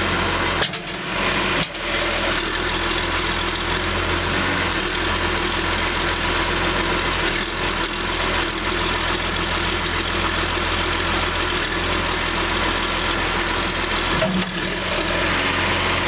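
John Deere 710D backhoe's diesel engine running steadily at idle, with two brief dips in the sound, about a second in and again near the end.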